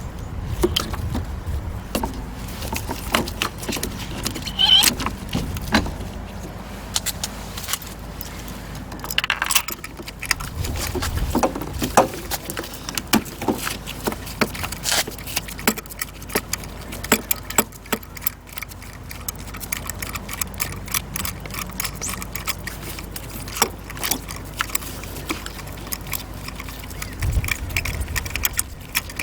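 Irregular metallic clinks, clicks and knocks of hand tools and small parts being handled, over a low steady hum.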